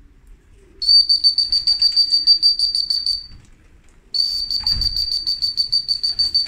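A trilling whistle blown in two long blasts of about two and a half seconds each, a high steady note that warbles rapidly. It is a pigeon fancier's whistle, calling racing pigeons down to the loft to trap.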